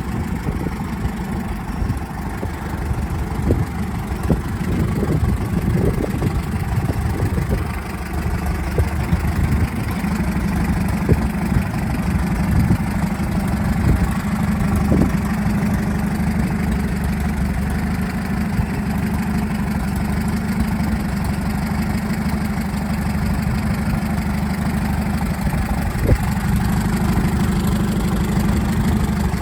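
Bristol 20 crawler bulldozer's engine running steadily at idle, with a few short, sharp knocks over it.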